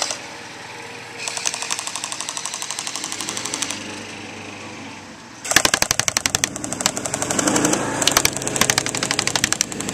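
A&K M249 Para SAW airsoft electric machine gun firing long full-auto bursts, a fast rattle of shots. From about halfway the bursts are louder and sharper, with the rapid clatter of BBs hitting a plastic trash can close by.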